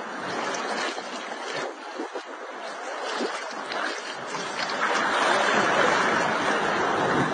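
Sea water splashing and rushing, getting louder about five seconds in.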